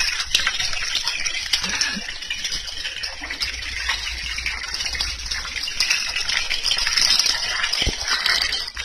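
Tap water gushing steadily from a pipe spout into a woven basket of small fish, while a hand stirs and rinses the wet fish, adding small clicks and rattles.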